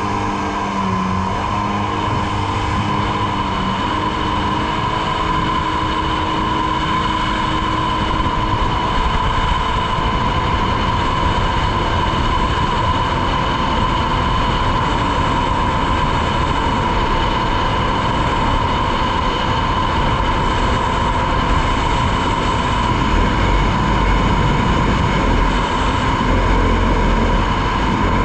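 2003 Polaris Virage personal watercraft running at speed on its newly replaced jet pump: a steady engine and pump sound with a constant high whine over rushing noise, its pitch climbing in the first few seconds as it accelerates.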